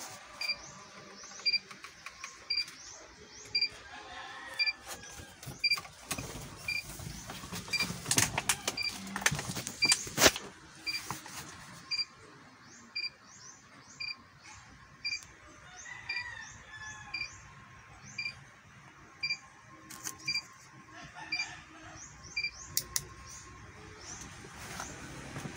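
Electronic warning beeper in an Isuzu truck cab beeping steadily about once a second, with the ignition on and the engine not running; the beeps stop near the end. Sharp clicks and knocks sound over it, loudest about ten seconds in.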